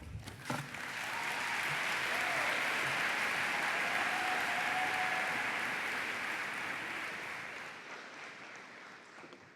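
Audience applauding: the clapping builds within the first second, holds steady, then fades out over the last two seconds.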